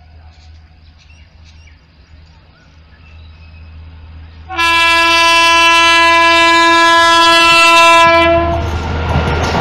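WAP-5 electric locomotive sounding its horn in one long steady blast lasting about four seconds, starting about halfway in. Near the end the rushing rumble of the train arriving at speed rises as the horn stops.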